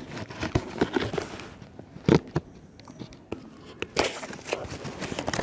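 Knife cutting and tearing open the wrapping of a cardboard parcel: the packaging crackles and crinkles in short, irregular bursts, with a quieter pause in the middle.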